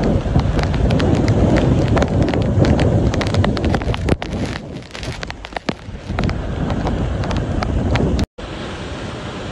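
Tropical-storm wind gusting hard against the microphone, with wind-driven rain and many sharp ticks of raindrops striking it. The gusts ease for a moment about halfway through and then build again. Near the end the sound cuts to a quieter, steadier rush.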